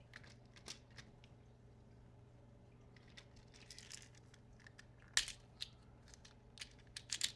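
Small screws and plastic kit parts being handled on a work surface: scattered light clicks, a short stretch of rustling in the middle, and a few louder clicks about five seconds in and near the end.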